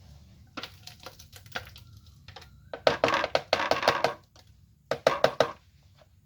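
Clicks and knocks from a small electric food chopper being handled with its motor off. There are a few light taps, then a dense rattle of clicks about three seconds in, and another short run of clicks near five seconds.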